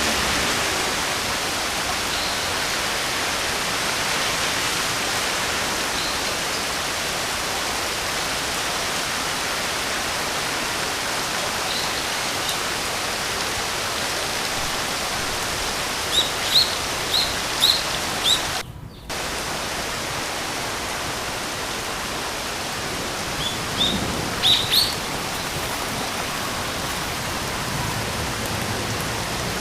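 Steady rain hiss with a bird chirping short high notes in two bouts, about five quick chirps in the middle and another cluster a few seconds later. The rain sound drops out for a split second between the two bouts.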